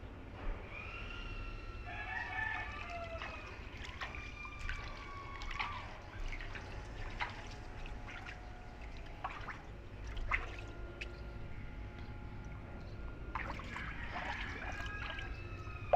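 Roosters crowing, a long call about a second in and another near the end, with light splashing of bare feet wading through shallow standing water on a flat concrete roof.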